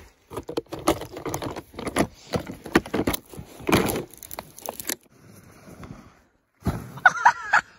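Broken plastic steering wheel of a GT Snow Racer steering sled being worked by a gloved hand, giving a run of irregular clicks, knocks and scrapes that stops about five seconds in. A brief voice near the end.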